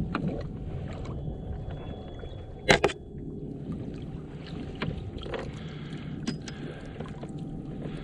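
Water sloshing and lapping against a kayak hull under a steady low rumble of wind and water noise, with one brief, loud, pitched squeak about three seconds in and a few faint knocks.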